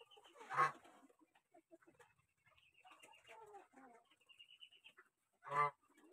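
Chickens calling: high repeated chirping trills and softer wavering calls, with two short, loud clucks about five seconds apart.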